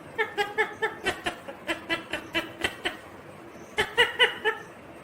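Indian ringneck parakeet chattering: a rapid run of short, pitched notes, about five a second for over two seconds, then a shorter run of about four notes near the end.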